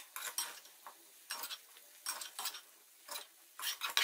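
Spoon scraping and tapping against the inside of a metal cooking pot as thick cooked masala is scooped out onto a plate: a string of short, irregular scrapes and clinks.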